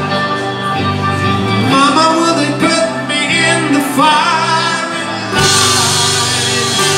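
Live rock band playing: electric guitars and bass under a man singing a melodic line, then about five seconds in the full band comes in louder.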